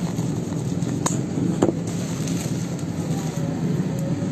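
Plastic parcel wrapping crinkling as it is handled, over a steady background hum and hiss, with two light clicks a little after a second in.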